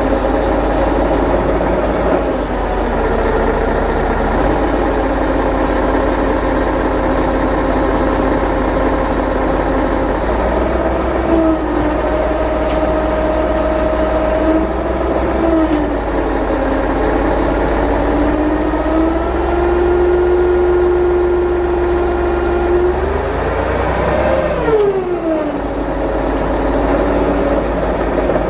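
Heavy vehicle's engine running steadily, its pitch shifting up and down as the engine speed changes, with one quick rise and fall a few seconds before the end.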